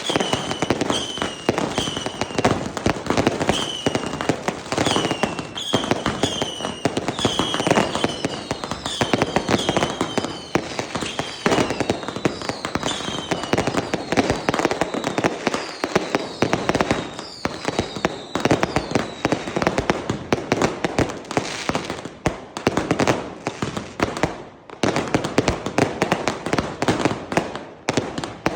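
Fireworks going off in a dense, continuous barrage of bangs and crackling, with a run of short falling whistles, well over one a second, through the first half and a few more a little later.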